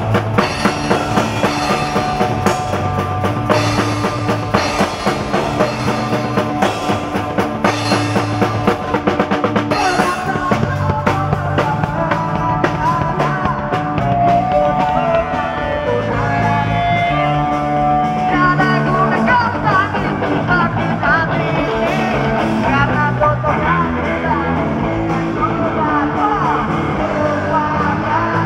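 Punk rock band playing live: a drum kit with rapid, even hits leads the first part, then electric guitar and bass carry the song, with a singer's voice coming in over the band in the second half.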